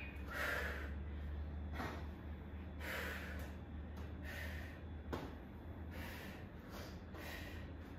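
A woman breathing hard from exertion during kettlebell side lunges: short forceful breaths, about one a second. A steady low hum runs underneath, and there is a single sharp click about five seconds in.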